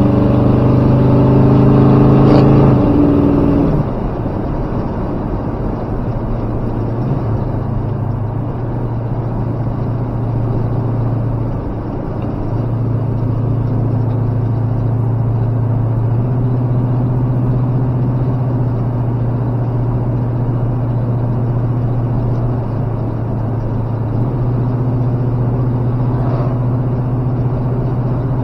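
Old pickup truck's engine drone while driving on the road, louder and fuller for the first few seconds, then easing off about four seconds in to a steady lower drone that dips briefly a couple of times.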